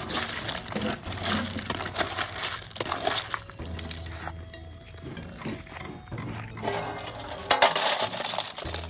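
Steamed shellfish shells clattering and clinking as a metal ladle stirs them in a bamboo basket, then a louder rush of shells tipped and scraped from the basket into a metal basin about seven and a half seconds in.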